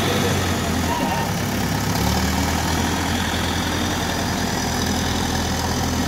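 Terex backhoe loader's diesel engine running steadily while the machine works with a loaded front bucket, with a slight change in the low engine note about two seconds in.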